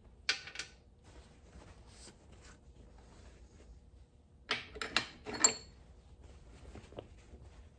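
Small metal tool parts clinking and knocking as they are handled and set down: a couple of clicks near the start, then a quick cluster of clinks about four and a half to five and a half seconds in, the last one ringing briefly.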